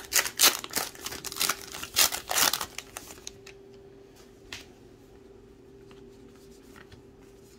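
Trading card pack wrapper torn open and crinkled: a rapid run of crackling tears for about three seconds. Then it goes quiet apart from a few soft clicks of the cards being handled, over a faint steady hum.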